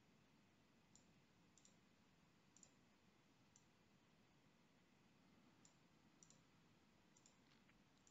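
Faint computer mouse clicks, about eight scattered through, some in quick pairs, over near-silent room tone.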